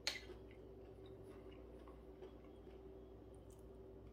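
Near silence: a faint steady hum of the room, with one light click of a metal fork against a china bowl right at the start.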